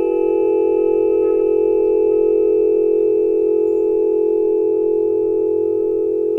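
A steady, sustained electronic tone made of several pitches held together, with a strong low hum dominating and fainter higher tones above it.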